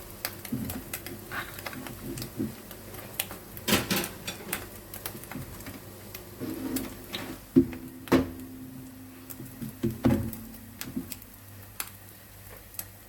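Irregular clicks and knocks of kitchen utensils against a frying pan while an egg omelette layer cooks, with the sharpest knock a little past halfway.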